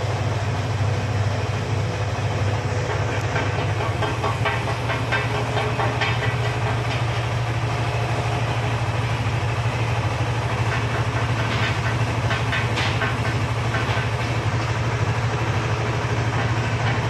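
Electric motor and gear reducer driving a 200 kg horizontal ribbon feed mixer, running steadily with a low hum. A faint irregular rattle comes from the ribbon blades turning through the duck feed.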